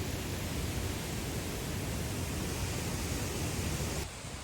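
Steady rush of flowing water from a rain-swollen mountain stream or waterfall. It drops off suddenly near the end.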